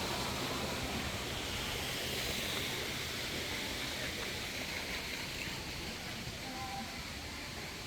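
Steady rushing outdoor noise, with a faint short tone near the end.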